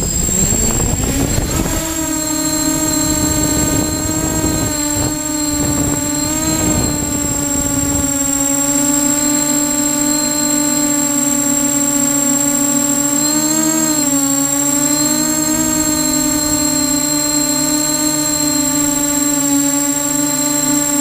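Y6 multirotor's six electric motors and propellers spinning up with a rising whine, then holding a steady hum with brief swells in pitch as the throttle changes. A rushing noise lies under it for the first several seconds, and a steady high whistle runs through.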